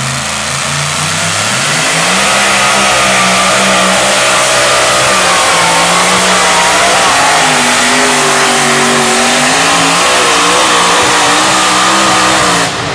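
Pulling tractor's open-header engine revving up at full throttle as it drags the sled down the track. The pitch climbs in the first couple of seconds, then holds loud with a wavering note, and the sound stops suddenly near the end.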